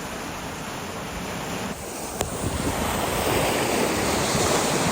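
Sea water rushing and wind buffeting the microphone aboard a sailboat under way, a steady noise that steps up louder about two seconds in.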